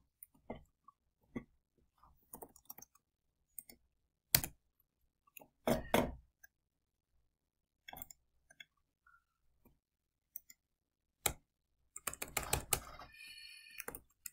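Computer keyboard keystrokes and mouse clicks: scattered single clicks, then a quick burst of typing near the end.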